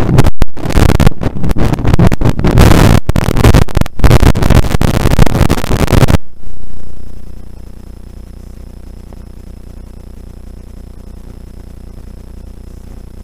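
Rally car at speed on a snowy stage, recorded in-car with an overloaded microphone: a harsh, distorted noisy roar with brief dropouts. About six seconds in it cuts off suddenly to a low steady electrical hum.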